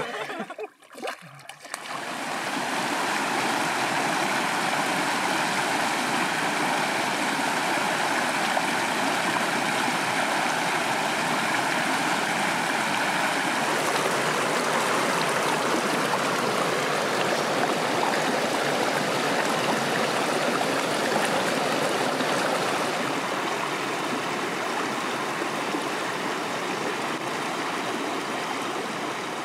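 Shallow stream rushing and gurgling over rocks, a steady even sound of running water.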